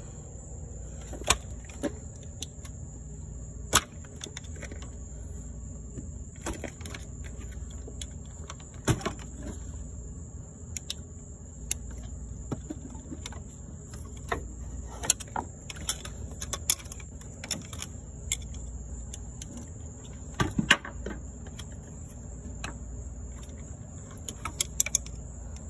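Scattered sharp clicks, taps and scrapes of a metal pick and fingers working on a Toyota Camry's shift-cable end and its old bushing while it is being pried out, over a steady low hum and a faint high whine. The loudest knocks come about a second in, near four and nine seconds, and in a short cluster past the twenty-second mark.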